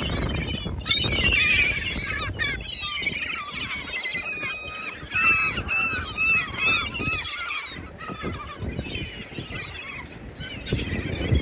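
A flock of geese honking, many overlapping calls with a run of quick repeated honks in the middle.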